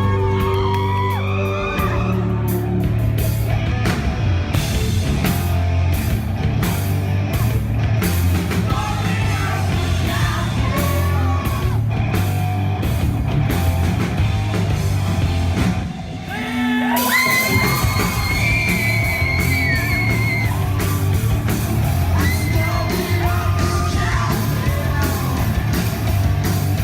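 Rock band playing live, with a singer singing and shouting over the band. The sound thins out briefly about sixteen seconds in, then the vocals come back with long held notes.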